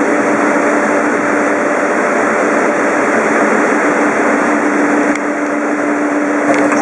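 Loud, steady mechanical drone: a constant low hum under an even rushing noise, like machinery or an engine running without change.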